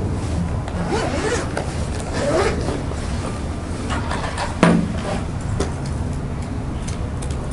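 Zipper of a drone's zippered hard-shell carrying case being run open, with wavering scraping strokes during the first couple of seconds. A single sharp knock about four and a half seconds in as the case contents are handled, over a steady low background rumble.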